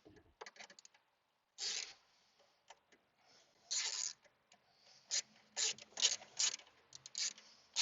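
Hand ratchet with a 7 mm socket running in small screws: short bursts of ratchet clicking, coming faster after about five seconds in.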